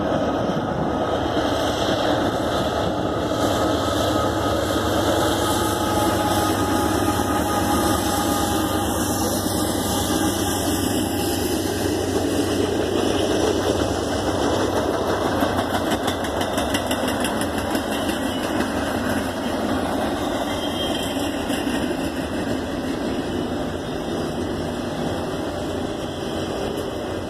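Norfolk Southern intermodal freight train passing: diesel locomotive engine followed by double-stack container cars rolling along the track. A steady rumble that eases off gradually near the end.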